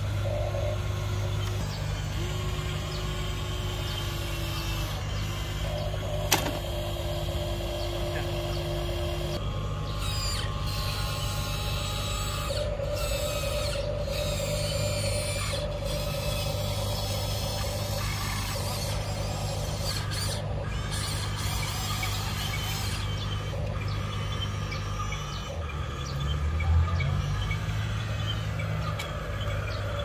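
Electric motors and plastic gearboxes of Huina RC excavators whining steadily as they work. The pitch of the whine shifts as different arm and bucket functions run. A single sharp click comes about six seconds in, and a brief low rumble about three-quarters of the way through.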